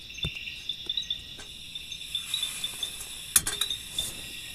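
Steady night chorus of insects, a high pulsing trill. A soft thump comes near the start and a sharp click about three seconds in, the loudest sound, from something handled close by.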